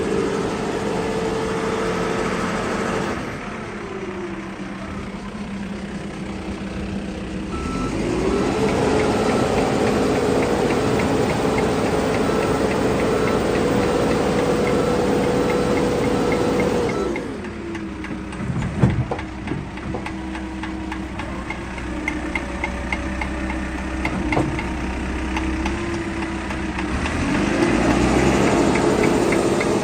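Case 695SR backhoe loader's diesel engine running, revving up and holding high for several seconds, then settling back to idle, twice. A sharp clunk sounds briefly near the middle.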